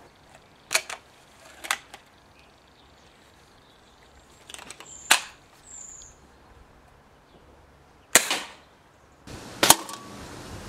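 Original Model 25 break-barrel spring air rifle (.22) being handled with a few sharp clicks and knocks, then fired with a sharp crack about eight seconds in and again near the end.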